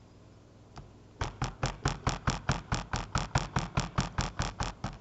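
Immersion stick blender running in a bowl of liquid soap batter, starting about a second in with an even pulsing chatter of about four to five beats a second.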